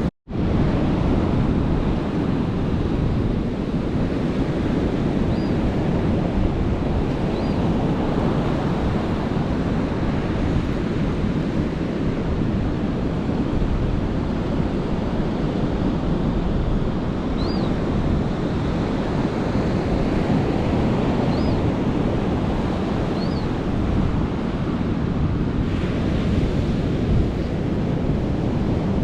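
Ocean surf breaking on a sandy beach, a steady rush of waves with wind buffeting the microphone. A few faint, short, high chirps come now and then, and the sound cuts out for a split second at the very start.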